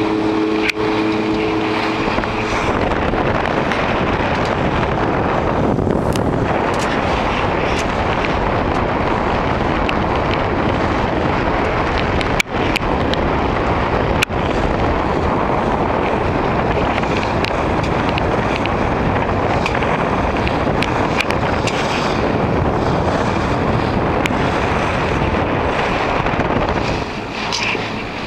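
Wind buffeting the camera microphone on a boat under way: a loud, steady rushing noise, with a low steady hum in the first two seconds and two brief breaks about twelve and fourteen seconds in.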